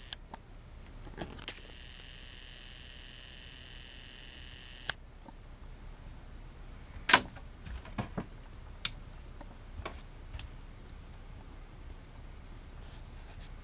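A camcorder's zoom motor whirring steadily for about four seconds and stopping with a click, followed by a few scattered clicks and knocks, the loudest about seven seconds in.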